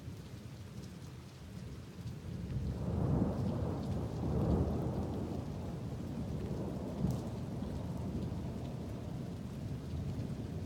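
Rain falling steadily during a thunderstorm, with a long low rumble of thunder that swells about two and a half seconds in and slowly dies away.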